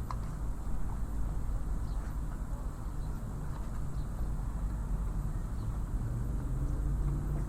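Harbour ambience: a steady low rumble of distant engines and traffic, with faint short high chirps and clicks over it. An engine hum swells in the last couple of seconds.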